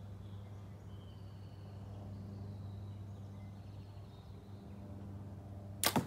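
The sharp, doubled crack of a 100 lb APA King Cobra Dangerous Game compound bow loosing a heavy 1,778-grain arrow, near the end. Before it there is only a steady low hum and faint bird chirps.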